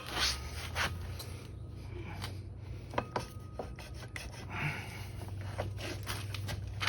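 Irregular scraping and rubbing with a few sharp knocks as the motorcycle's rear wheel and its parts are shifted and wiggled into position by hand.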